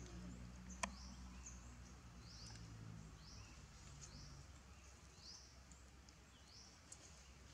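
Faint, high bird chirps, each rising quickly in pitch, repeated about once a second over a low hum, with one sharp click about a second in.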